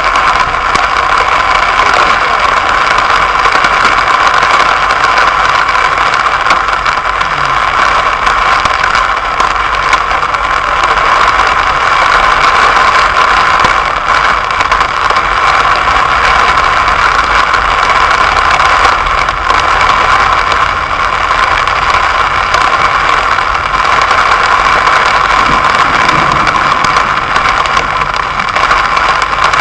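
Heavy rain pelting a car's roof and windscreen, heard from inside the cabin: a loud, steady hiss dotted with the small ticks of drops striking.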